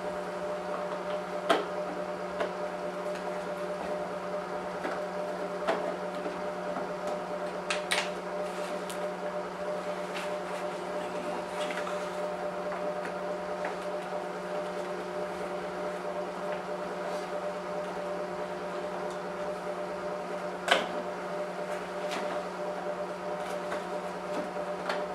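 Occasional sharp clicks and knocks of a Torx screwdriver and hard plastic parts as the headlight range adjuster is unscrewed from a headlight housing, the loudest about 21 seconds in. Under them runs a steady hum.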